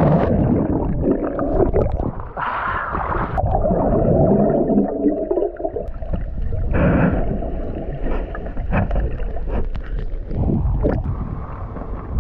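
Muffled rushing and gurgling of seawater heard through an action camera held underwater, the high end cut off, with a few faint clicks.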